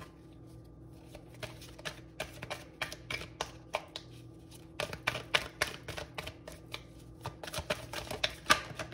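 A deck of tarot cards being shuffled by hand: a quick, irregular run of soft papery card clicks that starts about a second in and goes on until near the end.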